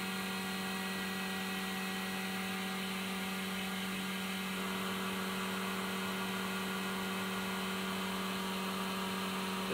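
Vacuum pump running steadily to hold vacuum on a resin-infusion bag: a constant hum with a steady hiss.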